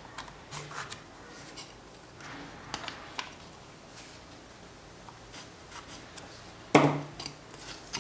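Pencil scratching short lines across a wooden disc along a plastic straightedge, a few brief strokes, marking its centre. Near the end comes a single louder knock.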